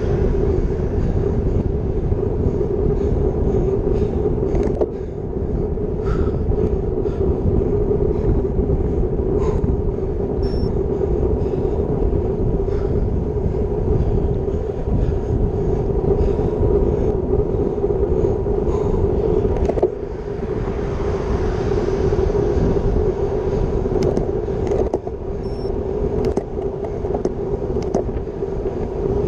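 Wind rushing over a bike-mounted Garmin VIRB action camera's microphone and tyre rumble on asphalt from a road bike ridden at about 30 km/h, with a steady hum underneath. The noise eases briefly a few times.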